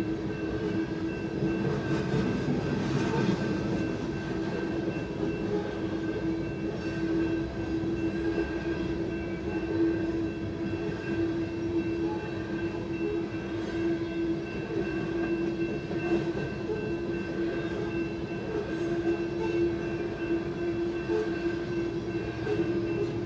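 Freight train of coal hopper cars rolling steadily past a grade crossing, heard from inside a car. A steady tone sits under the even rolling noise.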